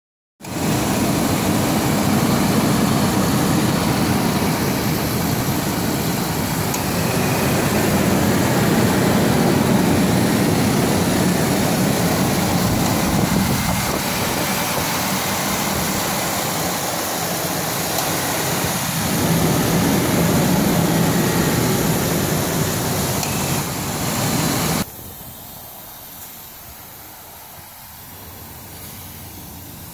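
Ford Explorer engine running with timing chain noise, which a mechanic put down to worn timing chains. The sound drops suddenly about 25 seconds in to a much quieter steady noise.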